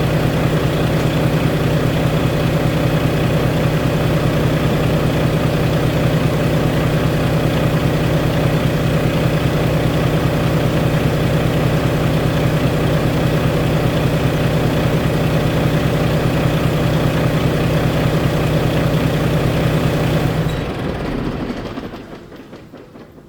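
Volvo D13 inline-six diesel truck engine, freshly rebuilt, idling steadily, then shut off about 20 seconds in and running down to a stop.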